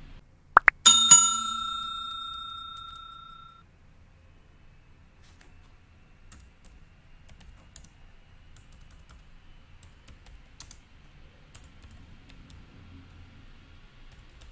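Subscribe-button animation sound effect: a quick rising pop, then a bell chime that rings out and fades over about three seconds. After it, a few faint, scattered clicks.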